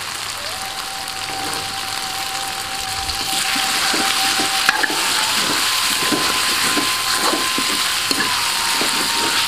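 Spice paste, lemongrass and petai beans sizzling in hot oil in an aluminium wok while a metal spatula stirs and scrapes them; the sizzle grows louder about three seconds in. A faint steady tone sits behind it and steps up in pitch about halfway through.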